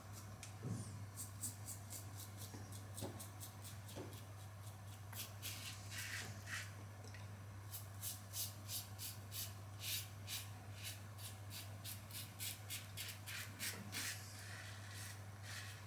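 Karve stainless safety razor with a Polsilver Super Iridium blade cutting through stubble in short strokes: a run of crisp scratches, about two a second from about five seconds in. A steady low hum sits underneath.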